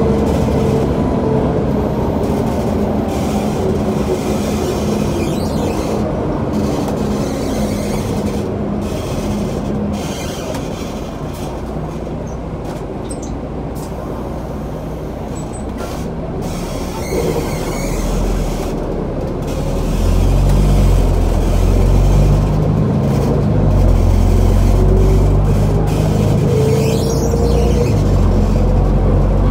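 City bus running along the road, heard from inside the cabin: steady engine and road noise with a whine that drops in pitch over the first few seconds and climbs again near the end. About two-thirds of the way through the deep engine sound grows louder as the bus pulls harder.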